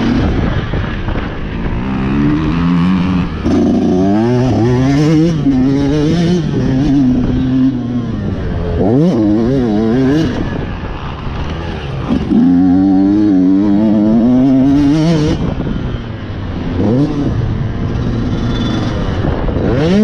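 Yamaha dirt bike engine being ridden hard, its pitch climbing and falling again and again as the throttle is opened and shut through the corners and bumps of the track, with brief lulls where the throttle comes off.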